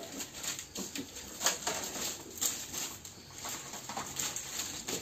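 Handling noise from unpacking wooden marking gauges: irregular clicks, light knocks and rustling of the packaging.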